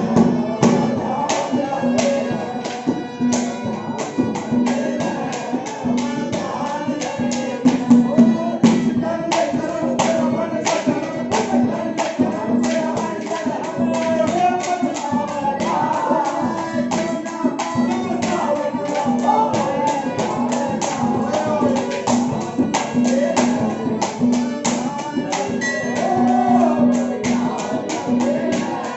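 Haryanvi ragni folk song: a singer's voice rising and falling over quick, even percussion strokes and a repeating low held note.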